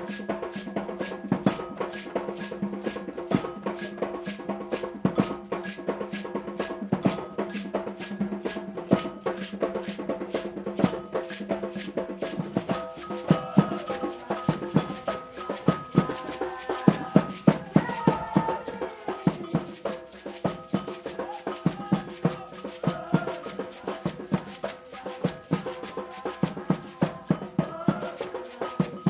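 Percussion-driven music: fast, dense drum strokes over a steady sustained low tone, with a wavering higher melody coming in about halfway through.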